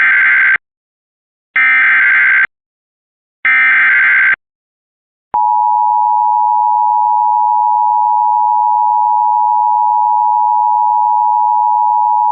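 Emergency Alert System alert opening: three short bursts of SAME header data, then about five seconds in the steady two-tone EAS attention signal starts and holds.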